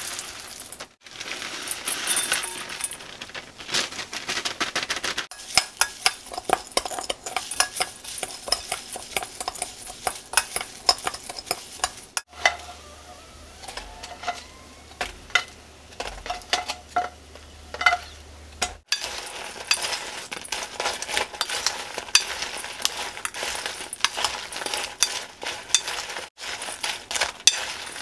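Mixed nuts poured into a glass bowl, pieces of rice cake set in with tongs, and the mixture stirred with a wooden spoon: a run of small clicks, rattles and scrapes against the glass, in several short takes.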